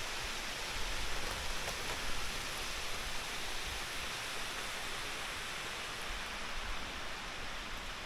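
Steady rushing of a waterfall: an even hiss of falling water.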